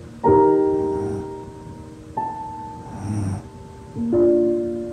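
Slow, soft piano music, a chord struck about every two seconds and left to fade. A sleeping dog's snoring breath comes in between the chords about three seconds in.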